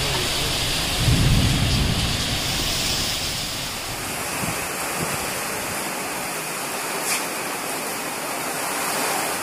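Heavy cyclone rain pouring down in strong wind, a dense steady hiss with a deep rumble about a second in.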